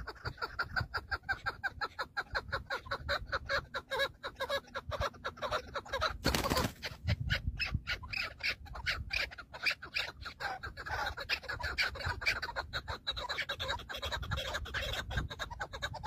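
Chukar partridges calling in a rapid, continuous run of repeated clucking notes, with a brief rustling burst about six seconds in.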